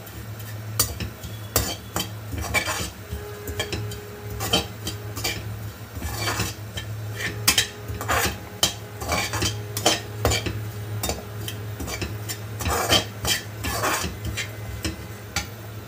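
Perforated steel spoon scraping and stirring desiccated coconut around a dry metal kadai as it is dry-roasted without oil, with irregular scrapes and clinks of metal on metal over a steady low hum.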